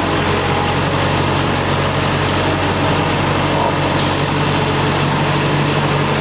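Concrete mixer running steadily: a constant low hum under a continuous noisy rumble.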